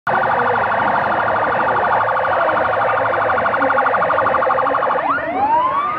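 Electronic siren sounding a rapid pulsing warble, then switching about five seconds in to a wail that rises in pitch.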